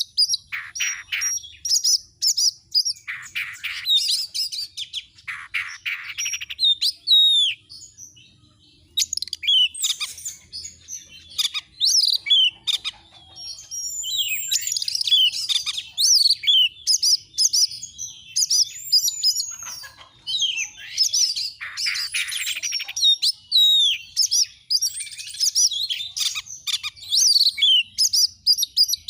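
Oriental magpie-robin singing a loud, varied song of whistled phrases that slide up and down in pitch, broken several times by fast scratchy rattles.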